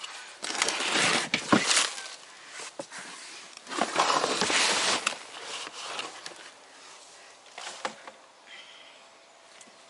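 Black plastic tub being tipped upside down and knocked against a wheelbarrow, with scraping and rustling as the potting soil and root ball slide out. It comes in two main bursts, the louder about four seconds in, followed by a few smaller knocks.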